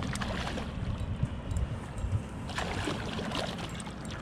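Water splashing and sloshing beside a kayak as a hooked steelhead is drawn in close, over a steady low rumble. The splashing picks up about two and a half seconds in.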